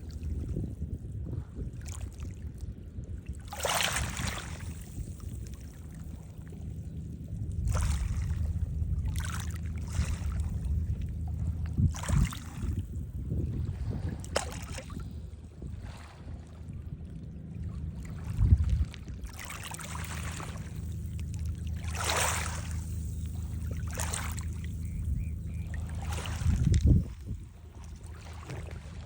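Sea water splashing and washing in surges every couple of seconds, over a steady low rumble.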